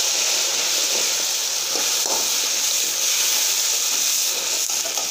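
Fried onions, garlic and ginger sizzling in hot oil in a metal karahi, a steady hiss just after ground tomatoes have gone into the oil, with a few faint scrapes of a slotted spoon stirring.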